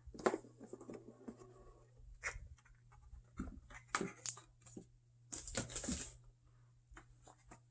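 Faint rustling and light knocks of a board game box being opened and its paper and cardstock contents handled, with a longer sliding rustle about five and a half seconds in.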